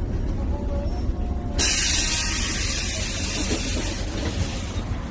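City bus's compressed-air system letting out a sudden loud hiss about a second and a half in, slowly dying away over about three seconds, over the steady low rumble of the bus engine.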